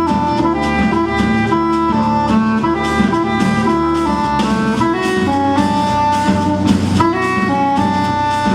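A jazz band playing: a saxophone-like lead carries a moving melody over bass notes and drums.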